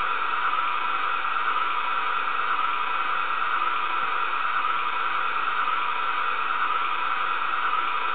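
Sound module of a gauge 0 DB class 23 steam locomotive model, through its small loudspeaker, playing a steady steam hiss while the model stands still.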